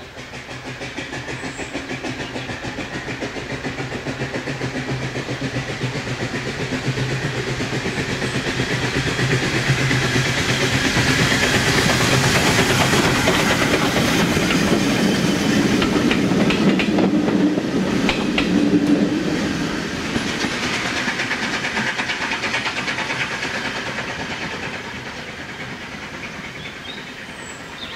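Steam tank locomotive No. 1054, an 0-6-2 Coal Tank, drawing a train of coaches past. It grows steadily louder to a peak about halfway through and then fades away. Through it come rhythmic exhaust beats and the clatter of wheels over the rail joints.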